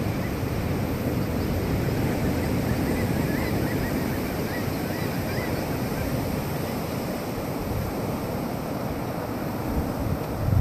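Ocean surf breaking and washing up a sandy beach, a steady rushing sound.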